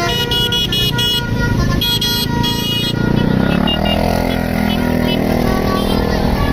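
A bus's basuri musical 'telolet' horn plays a quick tune of short, repeated notes for about three seconds. Then the bus engine takes over, rising in pitch and running loud.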